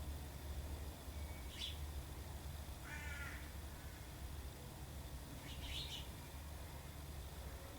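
Birds calling: a short high chirp, then about three seconds in a lower, harsher call, and another short high chirp a little before six seconds, over a low steady hum.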